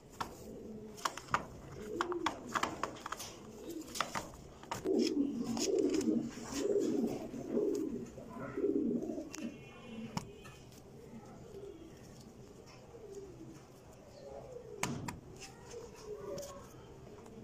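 Domestic pigeons cooing, a run of low warbling coos loudest from about five to nine seconds in, with scattered sharp clicks and taps and one louder knock near the end.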